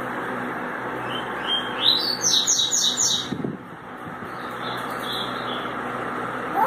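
Miniature pinscher puppies crying in a run of high-pitched rising squeals, about four a second, starting about a second in and lasting some two seconds, then a few fainter squeaks. A steady background hiss runs underneath.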